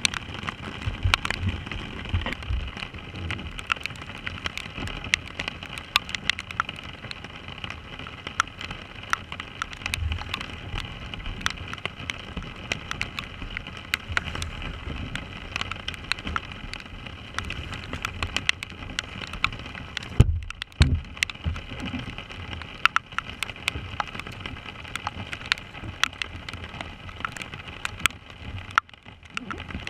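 Heavy rain falling on a kayak and its bow-mounted camera: a steady hiss full of sharp drop clicks, with scattered low thumps.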